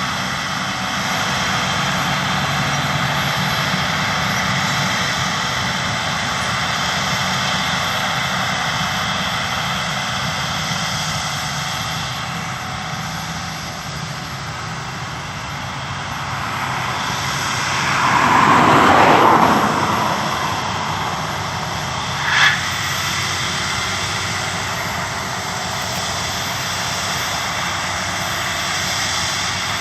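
Claas Lexion combine harvester running steadily, a continuous machine whine and rumble. It swells in loudness for a couple of seconds about two-thirds of the way through, with a brief sharp knock soon after.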